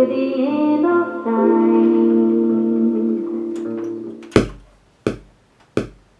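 Filtered female vocal sample played from an Akai MPC 2000XL sampler, sustained notes stepping in pitch and fading out about four seconds in. Three single drum hits follow, tapped on the pads about three quarters of a second apart, each short.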